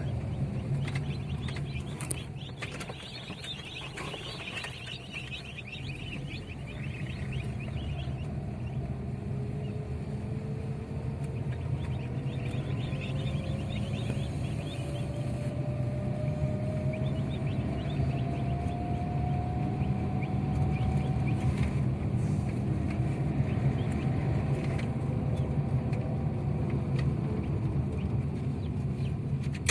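Steady road and engine noise inside a moving car, with a tone slowly rising in pitch partway through. Newly bought broiler chicks peep in short high chirps, in bursts early on and again around the middle.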